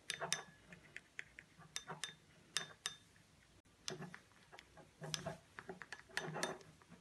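A metal spoon stirring in a small glass bowl, clinking and scraping against the glass at an irregular pace, as potassium hydroxide lye is mixed with acid slurry.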